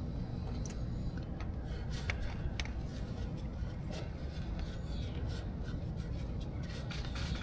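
Rag rubbing and wiping as oil and grime are cleaned off threads on a Yamaha Grizzly 600 ATV engine, with a few faint light scrapes and clicks.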